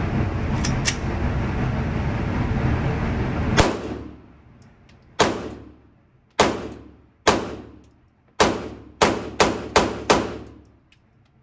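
A 9mm pistol fired nine times on an indoor range, each shot followed by a ringing echo. There is one shot about three and a half seconds in, three more roughly a second apart, then a quicker string of five near the end. Before the first shot a steady loud rushing noise fills the background.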